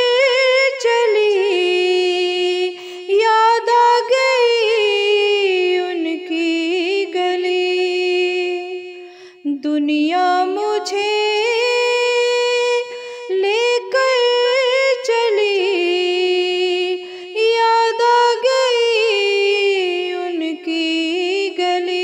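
A woman singing a naat, an Urdu devotional song in praise of the Prophet, in long held notes that waver and slide between pitches.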